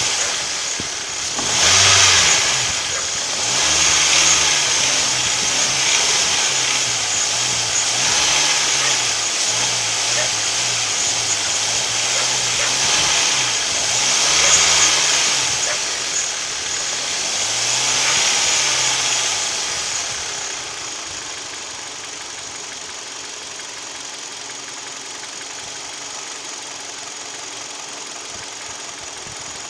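Hyundai/Kia G4KD 2.0-litre Theta II four-cylinder engine revved up and down several times, then settling back to a steady idle about two-thirds of the way through. The owner puts this engine's noise down to piston knock.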